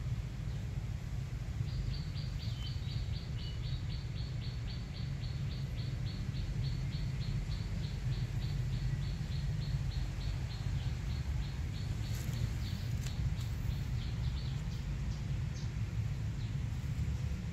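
A long run of short, high chirps repeated evenly at about four a second, starting about two seconds in and stopping a few seconds before the end, over a steady low rumble.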